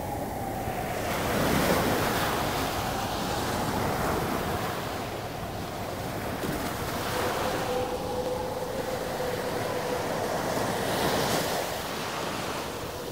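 Ocean surf washing in, swelling every few seconds, with wind blowing.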